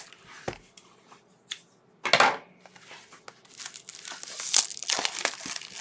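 Plastic shrink wrap being torn and crinkled off a sealed box of trading cards: a quiet start with a few small clicks, a sharp rip about two seconds in, then irregular crinkling.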